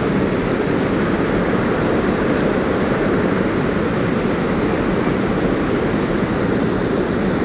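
Steady rush of river water pouring over a low concrete weir.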